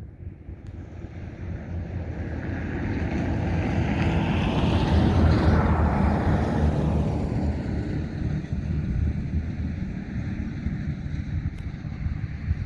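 A road vehicle passing by: its tyre and engine noise builds to a peak about five seconds in and then slowly fades away.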